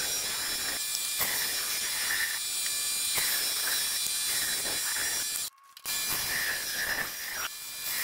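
Band saw running with its blade cutting through a wooden board; a steady motor whine under repeated surges of cutting noise. The sound drops out briefly about five and a half seconds in, then resumes.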